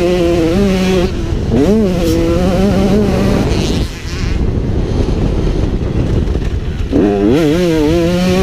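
KTM 125cc two-stroke motocross engine ridden hard, its pitch rising and falling as the rider works the throttle and gears. About four seconds in it goes off the throttle for about three seconds, leaving a rushing noise, then revs back up sharply near the end.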